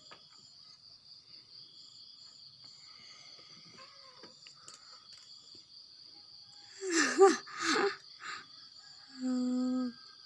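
Crickets chirping steadily. About seven seconds in, a person's voice makes two short, loud sounds that bend in pitch, and near the end someone hums a steady 'hmm' for about a second.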